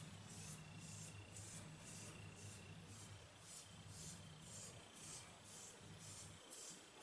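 Faint, rhythmic rubbing of fingertips working a gritty crushed-aspirin paste mask over facial skin, about two strokes a second, over a low hum.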